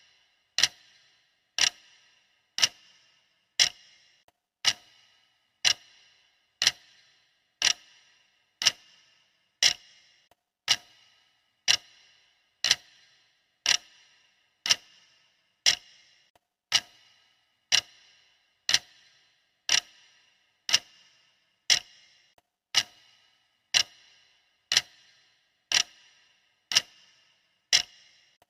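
Clock-style ticking of a countdown timer, a sharp tick about once a second with a brief ring after each, perfectly regular.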